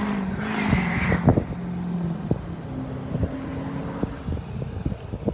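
A motor vehicle's engine running with a steady hum, with several short sharp knocks or clicks scattered through.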